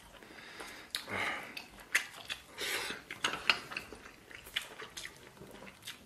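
A person chewing and slurping noodles with wet mouth sounds, broken by a few short clicks.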